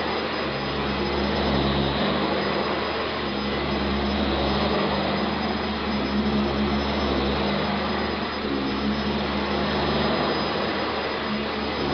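Eureka The Boss upright vacuum cleaner running steadily, its motor giving a continuous whooshing whine with a low hum beneath.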